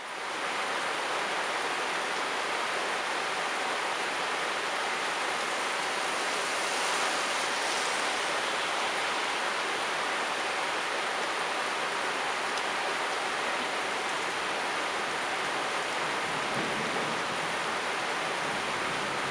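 Steady rain falling on grass and leaves, an even hiss.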